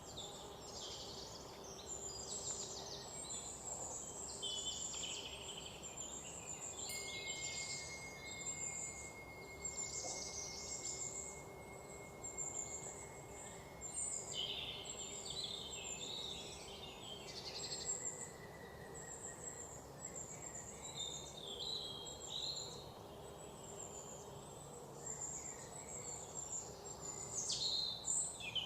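Many wild birds chirping and trilling together in a forest, calls overlapping throughout. A thin, steady high tone runs under the calls from about seven seconds in to about seventeen seconds in.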